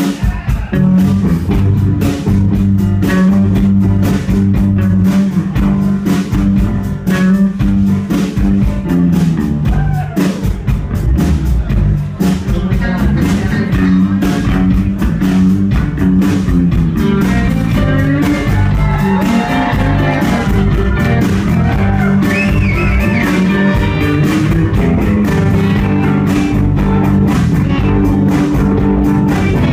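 Live rock band playing a song, with electric guitars, organ and drums keeping a steady beat throughout.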